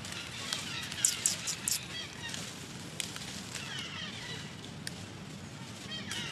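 Baby long-tailed macaque squeaking and crying in repeated short falling calls. A quick run of sharp crackles, like dry leaves, comes about a second in.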